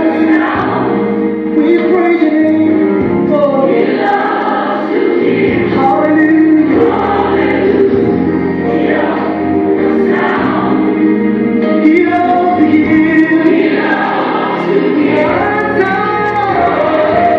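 Recorded gospel choir song with male and female voices singing over keyboard chords and bass, playing loud and steady as dance music.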